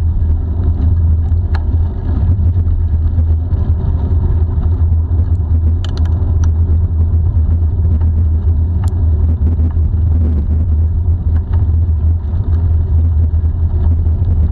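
Wind buffeting the handlebar-mounted action camera's microphone at about 30 km/h, a loud, steady low rumble, over the hiss of bicycle tyres rolling on asphalt. A few faint clicks and rattles from the bike come through now and then.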